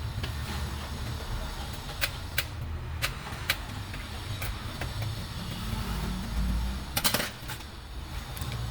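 Small tool clicks and taps as a screwdriver works the captive screws of a Lenovo ThinkPad E480's bottom cover: a few scattered single clicks, then a louder short clatter about seven seconds in, over a steady low hum.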